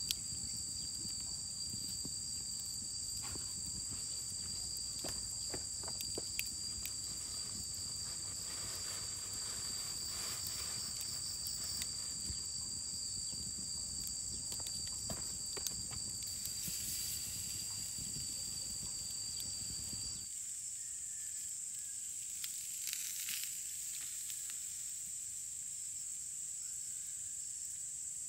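Insects droning steadily at a high pitch, with a second, lower drone that stops about twenty seconds in. Scattered small crackles and clicks sound over the first two-thirds.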